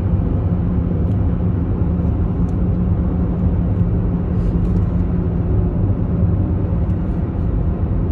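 Steady low rumble of a car driving through a road tunnel, heard from inside the cabin: engine and tyre noise with a low, even drone.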